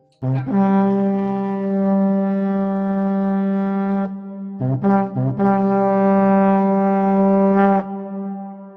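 Intro music of a horn blown in long held notes: one long blast, two short notes, then a second long blast at the same pitch that cuts off near the end.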